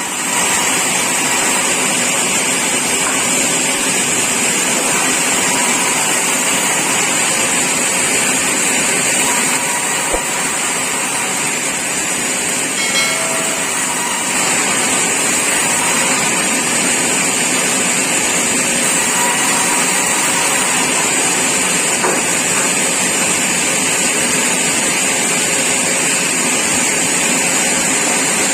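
Sawmill machinery running steadily: a constant, even hiss-like machine noise with little low end that holds unchanged throughout.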